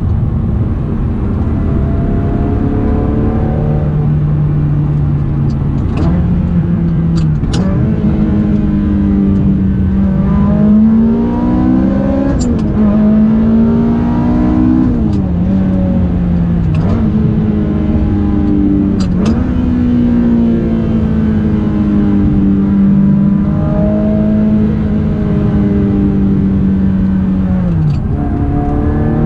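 Ferrari 360 Modena's 3.6-litre V8 through a Larini exhaust, heard from inside the cabin while driving. The engine note climbs and then drops sharply again and again, the pattern of upshifts under acceleration, with a few brief sharp clicks.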